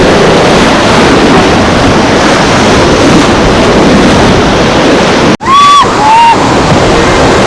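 Loud rushing whitewater of a river rapid, with wind buffeting the microphone. About five seconds in it cuts off abruptly, and a couple of short held shouts follow.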